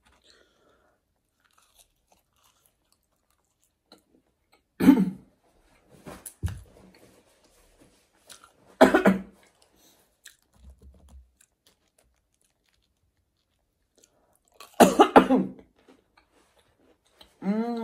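A person chewing fried breaded cheese and herb melts with quiet mouth sounds. The chewing is broken by short, loud throaty vocal noises about five, nine and fifteen seconds in, and again at the very end.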